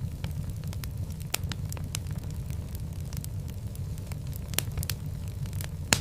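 Wood fire burning in a fireplace: a steady low rumble with irregular sharp crackles and pops, the loudest pop near the end.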